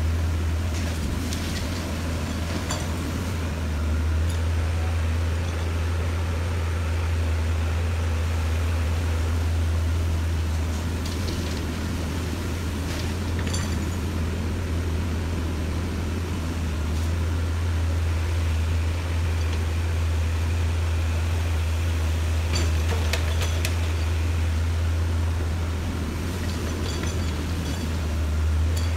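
Diesel engines of a hydraulic excavator and a dump truck running, a steady low drone, with a few short clanks and knocks scattered through it.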